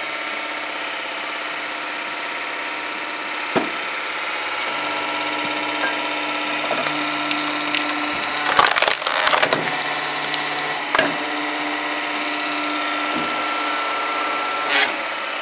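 Firewood splitting machine running steadily while wood splits. Single sharp cracks come at intervals, with a dense run of cracking and splintering around the middle.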